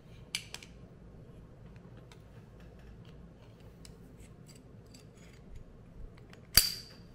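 Small metallic clicks and scrapes of a Springfield Armory 1911 pistol's slide being worked onto its frame, with one loud, sharp metal click that rings briefly about six and a half seconds in.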